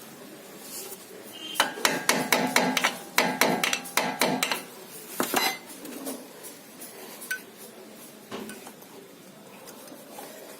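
Screwdriver clinking and knocking against the front brake caliper and worn pad as the pad is pried to push the caliper piston back: a quick run of ringing metal strikes, about four a second, for some three seconds, then a single strike and a few fainter knocks.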